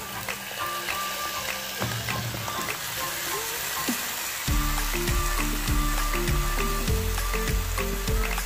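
Marinated chicken and its soy-vinegar marinade sizzling as they are tipped into a hot pan of sautéed onions and garlic. Background music plays over it, and a heavy bass line comes in about halfway through.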